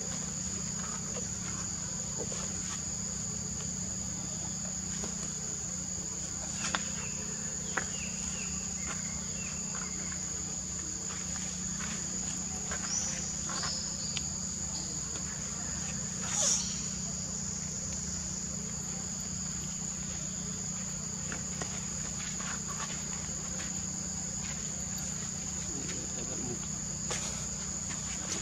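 Steady, unbroken insect chorus of crickets or cicadas: a continuous high-pitched shrill drone over a low steady hum. A few brief clicks and short chirps stand out, the loudest about sixteen seconds in.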